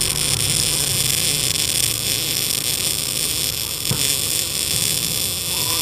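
MIG welding arc from a Tenya Smart MIG 265 welder laying a bead on thin steel box section: a steady, even hiss. The smooth, 'sweet' arc sound shows the wire speed and voltage are set right.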